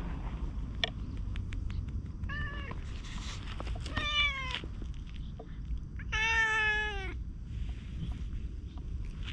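Orange tabby cat meowing three times, the first short and the last the longest and lowest, about a second long.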